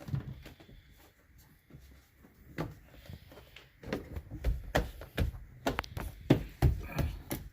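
Plastic interior trim being pressed back into place by hand, worked in from one side: an irregular series of knocks and clicks with handling rustle in between.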